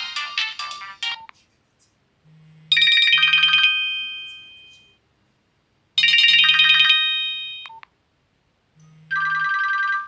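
Nokia 101 mobile phone ringtones: short, bright electronic melodies played one after another. Each lasts a second or two and stops, with silent gaps between. One ends about a second in, and three more follow.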